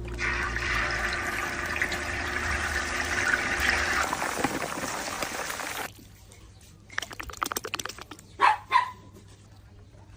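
Food sizzling and bubbling in a hot pan for about six seconds, then it stops suddenly. Near the end come a quick run of clicks and two short, sharp louder sounds.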